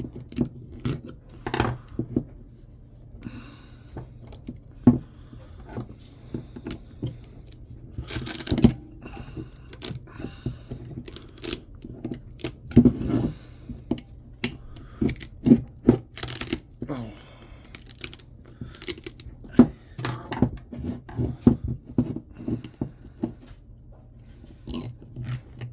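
Hand tools working copper windings out of an electric motor: a screwdriver and wire cutters click, snip and scrape irregularly against metal and wire. Several louder tearing bursts come as the resin-coated coils are pried and pulled loose.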